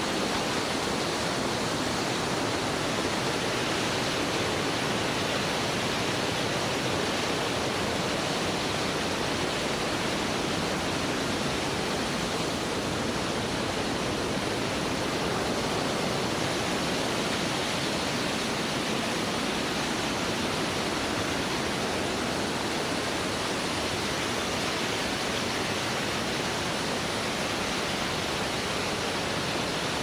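Mountain waterfall pouring: a steady, unbroken rush of falling water.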